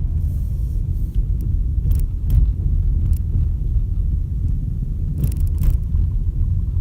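Toyota Etios sedan on the move: steady low road rumble with several short knocks from the suspension, a few in the first three seconds and a cluster between about five and six seconds in. The dealership says this suspension noise is characteristic of the car.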